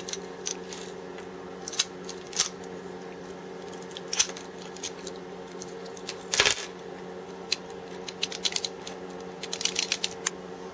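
A metal padlock being handled, giving scattered light clicks and clinks, a louder clatter about six and a half seconds in, and a quick run of small clicks near the end.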